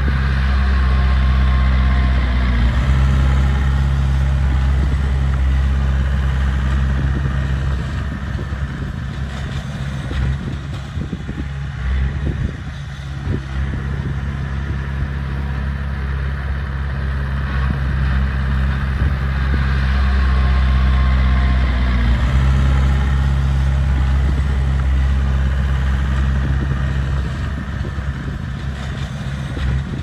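Heavy diesel engine of earthmoving machinery running continuously. It works harder twice, at the start and again past the middle, and eases off between, with some clattering in the lighter stretch.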